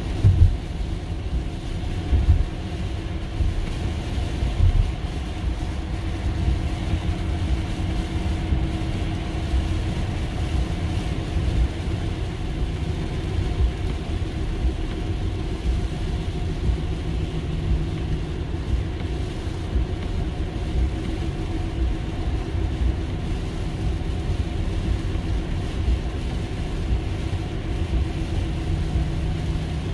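Steady road and tyre noise on a wet highway, heard inside the cabin of a Tesla electric car: a low rumble with a faint hiss and a steady faint hum.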